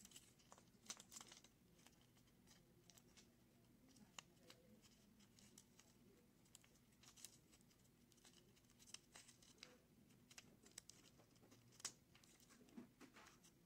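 Faint, scattered rustles and small clicks of paper strips being handled and folded, against near silence.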